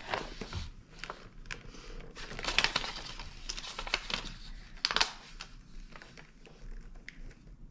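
Cardboard toy packaging being pulled, torn and crinkled by hand, an irregular run of crackles and rips with the sharpest ones about two and a half and five seconds in.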